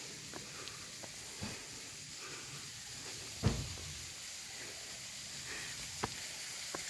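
Footsteps on a stony path with a few scattered knocks, one louder low thump about three and a half seconds in, over a steady high hiss.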